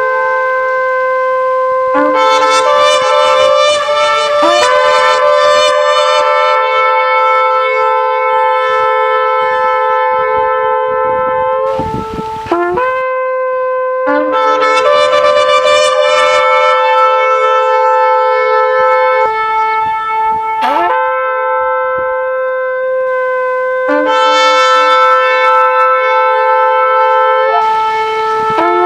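Shofars blowing long, held blasts that overlap at different pitches. New blasts come in several times, some starting with a short upward slide in pitch.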